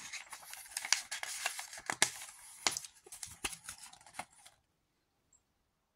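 A paper booklet being opened and handled: paper rustling with many small clicks and snaps, stopping about four and a half seconds in.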